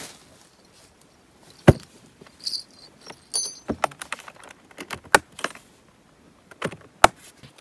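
A long fishing tackle box being shut and packed up: its lids knock closed, with scattered clicks and clinks from hinges, latches and gear inside and a few brief metallic rings. The sharpest knocks come about two seconds in and near the end.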